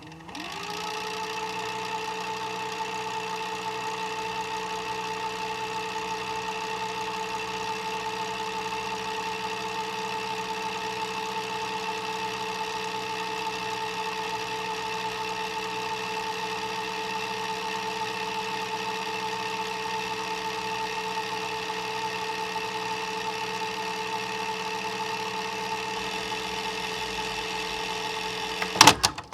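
VHS player fast-forwarding a tape: the transport motor spins up over the first second into a steady whine and runs evenly. It stops with a sharp mechanical click near the end as fast-forward is halted.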